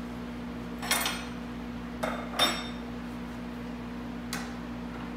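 Metal tools and drill-guide parts being handled on a wooden workbench: four short clinks and knocks, the loudest about two and a half seconds in.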